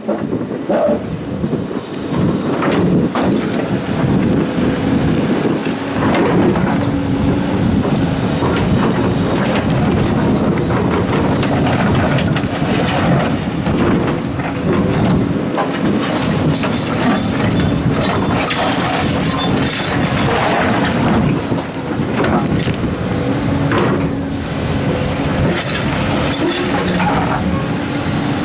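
Komatsu hydraulic excavators working heavy rocks: engines and hydraulics running under load, with a steady whine that comes and goes, and a continuous string of knocks, scrapes and grinding as stone drags and strikes against stone and the steel bucket.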